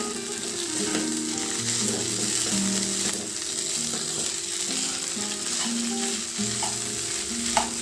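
Crumbled idli being stirred with a spatula in a kadai of hot oil, onions and dals: a steady sizzle with the spatula scraping through the food. One sharp clink of the spatula on the pan comes near the end.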